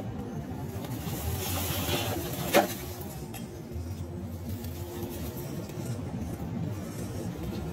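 1/10-scale RC rock crawler with a brushed 550 motor running at low speed, motor and gearbox whirring steadily as it crawls over rock. A single sharp knock comes about two and a half seconds in.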